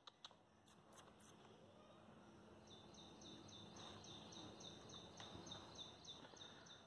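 Near silence: faint outdoor background with a few soft clicks in the first second, then, from about three seconds in, a faint high chirp repeated about three times a second.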